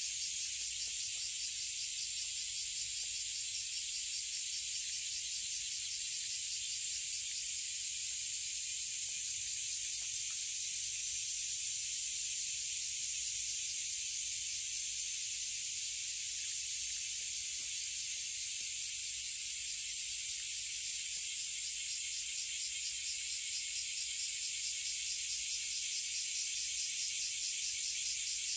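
Steady high-pitched chorus of summer insects, an unbroken hiss with a fine rapid pulse to it.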